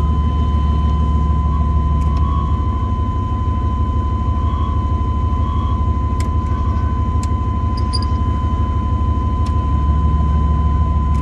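Old Chevy/GMC pickup's engine running steadily, heard from inside the cab, with a constant high-pitched whine from the alternator, which is screaming. A few sharp clicks come from dash switches being worked.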